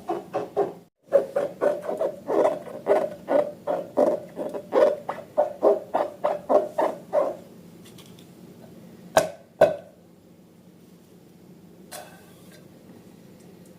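Slime being squeezed and kneaded by hand, giving a run of wet squelches about three or four a second that stops about seven seconds in. Two sharp clicks follow about two seconds later.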